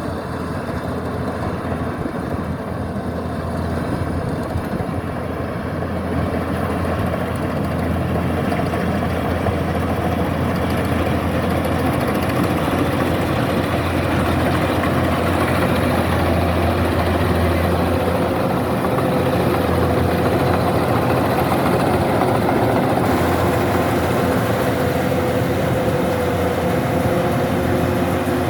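Kubota DC-105X combine harvester running with a steady diesel engine and machinery drone, growing louder over the first dozen seconds and then holding steady.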